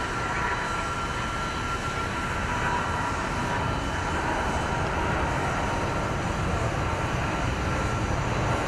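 Jet airliner engines running: a steady, broad rush with faint thin whining tones on top, one of which fades out about two seconds in.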